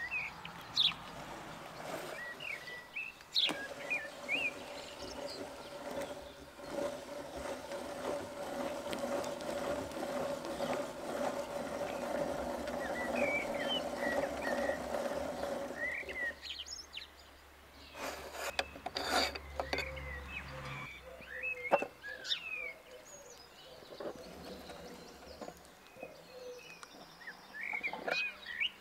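Hand-cranked meat grinder turning and forcing soft ice cream through its cutting plate: a steady grinding noise that stops about sixteen seconds in. Birds chirp throughout, and a few sharp knocks follow a couple of seconds after the grinding stops.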